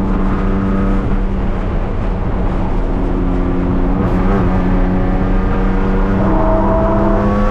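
BMW E36 race car's engine heard from inside the stripped cabin, holding fairly steady revs, with a brief wobble in pitch about four seconds in. From about six seconds on the revs climb as the car accelerates.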